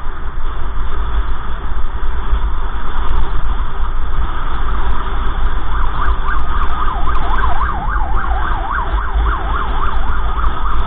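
Steady low rumble of a car driving. About six seconds in, an emergency vehicle's siren starts a fast yelp, wailing up and down about three times a second.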